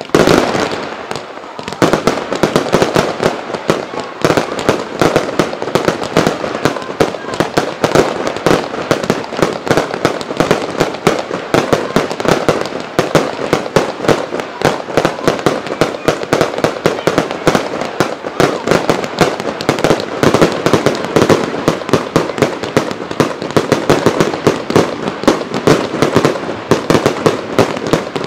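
Fireworks barrage: a dense, rapid stream of bangs and crackling, many shots a second, setting in after a brief lull about two seconds in and continuing without a break.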